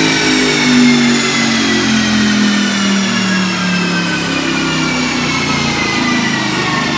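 Audi R8's 4.2-litre V8 with a Milltek exhaust, running on a chassis dyno, eased off after a power pull. Under the engine's low note, a high whine from the spinning wheels and rollers falls slowly and steadily in pitch as they wind down.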